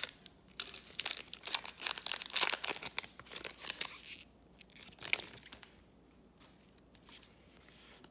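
Foil trading-card pack wrapper being torn open and crinkled: a dense run of crackling for about three and a half seconds, one more crinkle about five seconds in, then only faint handling.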